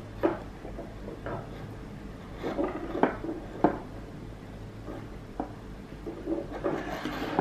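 Small scattered clicks and taps of fingers and wire ends being pressed onto the terminals of a cylindrical battery cell on a tabletop, about eight in all, over a faint steady hum.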